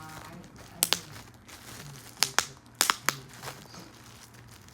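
Bubble wrap being squeezed and popped by hand: seven sharp pops, mostly in quick pairs, with the plastic crinkling between them.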